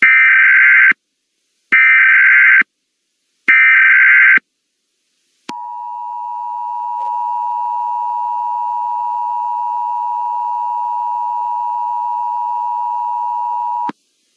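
Emergency Alert System tones: three bursts of SAME header data tones about a second long each, then the steady two-tone attention signal, held for about eight seconds before cutting off suddenly. They mark the start of an emergency alert message.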